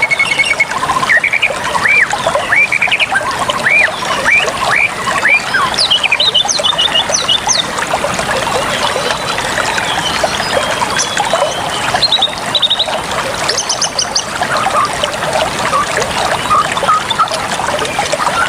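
Water trickling steadily, with birds chirping over it: many short curved notes through the first half, and quick trills here and there.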